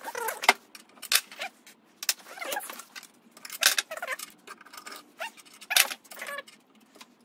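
Several short metallic clinks and jangles of a hand tool, some with a brief squeak, as a wrench works the T-bolt holding the generator strap underneath the engine.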